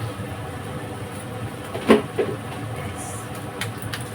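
Kitchen cooking sounds at the stove: a steady low rumble, a short ringing clink of a metal utensil about two seconds in, and a few light taps near the end.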